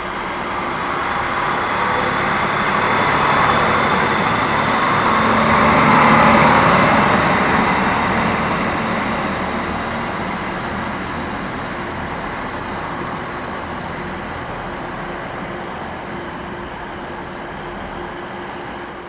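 DB Class 650 Regio-Shuttle diesel railcar passing and pulling away along the track, its diesel engine running loudest about six seconds in and then slowly fading as it recedes. A brief hiss comes about four seconds in.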